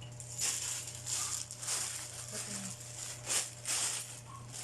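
Plastic packaging crinkling and rustling in short irregular handfuls as a sling bag is handled and unwrapped, over a steady low electrical hum.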